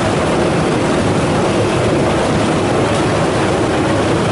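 A harbour passenger ferry under way: a steady, loud rumble of its engine mixed with the rush of water along the hull.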